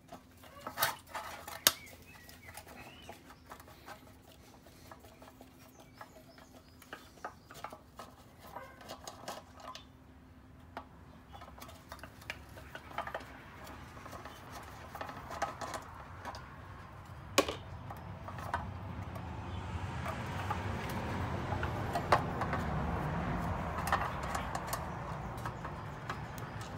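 Small clicks and taps of a screwdriver and screws as the fuel tank and carburettor of a two-stroke mower are taken apart, with a few sharper knocks. A low rushing noise swells in the last several seconds and then fades.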